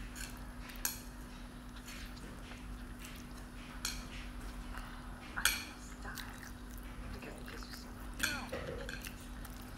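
Chopsticks clicking against a ceramic bowl while stirring instant noodles: four short, sharp clinks spread out over several seconds, the loudest about halfway through, over a steady low hum.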